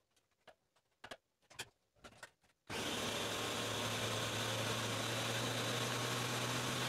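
A few light knocks and clicks, then about two and a half seconds in a Ninja countertop blender starts at its highest speed: a loud, steady motor whirr with a low hum as it blends a thick frozen mixture of zucchini, cottage cheese and whey protein into ice cream.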